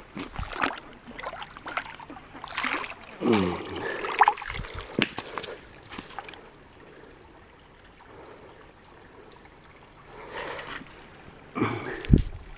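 A homemade T-shirt net on a stick is swept through shallow creek water, sloshing and splashing, then lifted out onto the bank and left trickling water. There is a sharp knock near the end.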